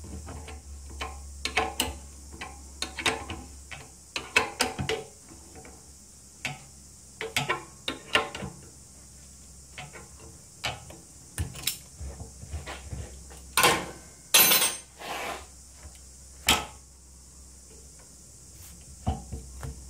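Spanner clicking and clinking against a nylock nut and the wheel axle on an electric golf cart's wheel leg as the nut is worked on by hand. The sound comes as irregular clusters of short metal clicks, with a few louder, ringing metal clanks about two-thirds of the way through.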